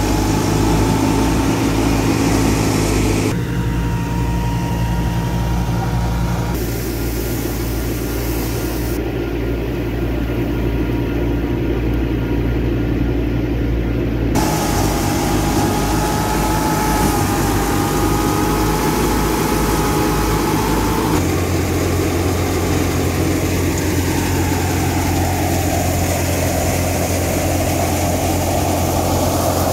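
Massey Ferguson 385's four-cylinder diesel engine running steadily under load, driving a wheat thresher through the PTO: a continuous heavy drone of engine and threshing machinery, with a thin steady whine above it in parts. The sound changes abruptly several times as the view jumps between shots.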